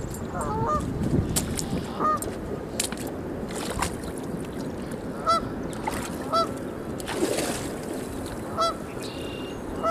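Geese honking, short calls recurring every second or two, some in quick pairs.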